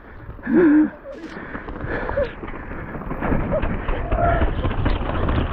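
Intense Carbine mountain bike rolling down a muddy, rooty trail: a steady rumble of tyres, wind and rattling frame that grows louder as the bike picks up speed, with scattered knocks over roots and rocks. A short vocal yell comes about half a second in.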